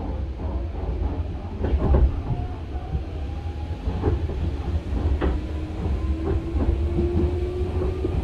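Hanshin 5001-series 'Jet Car' resistance-controlled commuter train heard from inside the car as it accelerates away from a station. The traction motors whine in a slowly rising pitch over a low running rumble, and the wheels give several sharp clacks over rail joints.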